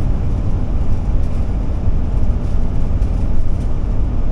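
Steady low rumble of a Ford E450-chassis Class C motorhome cruising at highway speed, engine and road noise heard inside the cab.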